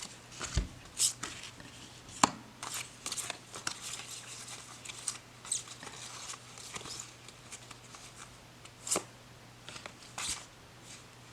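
Laminated tarot cards being flipped and slid through by hand: a scattered run of light clicks, snaps and rustles as cards are picked up, spread and set down.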